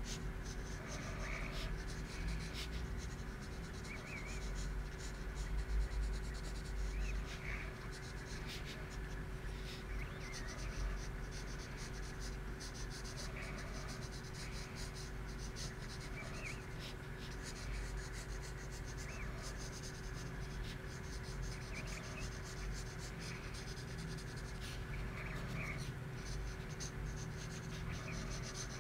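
Wooden graphite pencil scratching across paper in many short sketching strokes, over a steady low hum.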